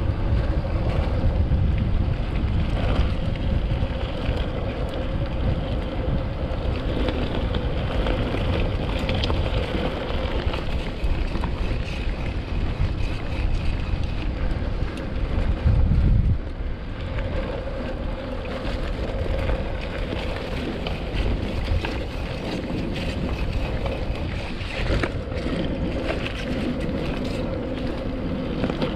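Mountain bike rolling over a rough, potholed dirt track: a steady low rumble of tyres and rattling frame with wind buffeting the microphone, swelling louder for a moment about halfway through.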